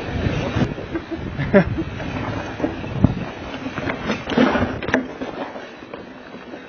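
Mountain bike riding down a rough dirt trail, heard from a handlebar camera: tyres rumbling over dirt and rocks and the bike rattling, with sharp knocks over bumps. It gets quieter near the end.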